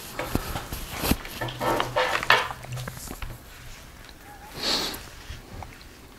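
Handling noise of a rifle being turned over in the hands: scattered light clicks and knocks of the gun and its sling hardware, with brief rustles of the sling and clothing, one near the end.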